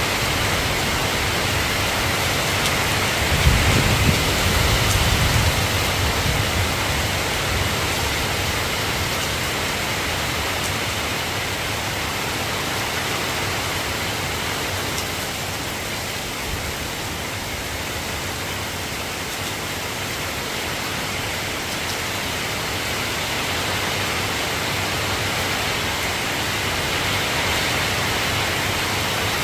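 Soft rain falling in a steady hiss, with a brief low rumble about four seconds in.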